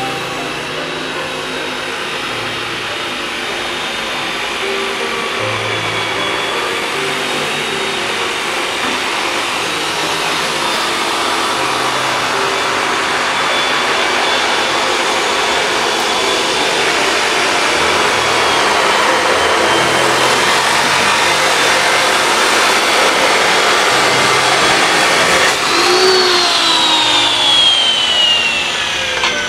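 Angle grinder cutting steel rebar, a loud steady grinding with a high motor whine that grows louder over the first twenty seconds. About 26 s in it is switched off and its whine falls steadily as the disc spins down.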